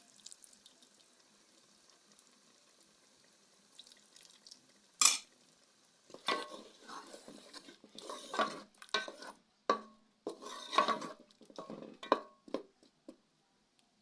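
A spoon stirring a pot of stew, scraping and knocking irregularly against the pot for several seconds, after one sharp clank about five seconds in.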